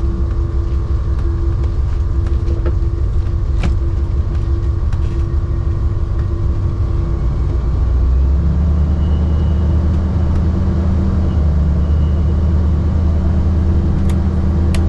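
GMC motorhome's V8 engine running under load while driving off towing a boat trailer, with road rumble, heard inside the cabin. About eight seconds in the engine note changes to a steadier drone.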